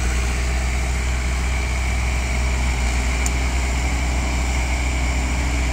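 Diesel engine of a loaded Hino dump truck running steadily as the truck crawls through soft dirt.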